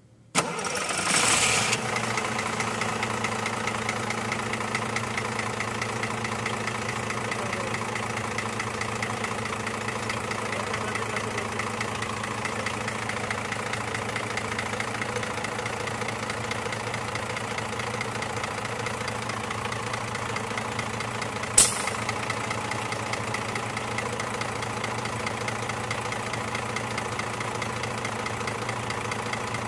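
Scania truck diesel engine idling steadily, heard up close at the clutch housing's inspection opening. The sound comes in abruptly and loudly near the start, then runs at an even level, with a single sharp click about 22 seconds in.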